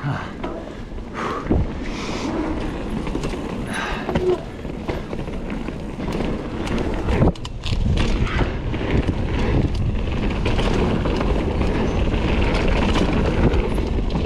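Kona Process 153 full-suspension mountain bike riding down a dirt trail: tyres on dirt with frequent knocks and rattles from the bike, over a steady low rumble of wind on the camera microphone.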